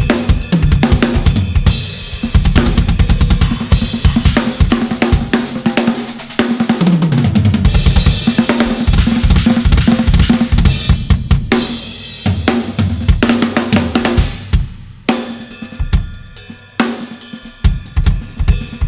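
Drum kit played in a studio: kick, snare, hi-hat and cymbals in a driving beat. About seven seconds in, a tom fill runs down in pitch; the playing thins out about three-quarters of the way through, then a steady, evenly spaced pattern comes back.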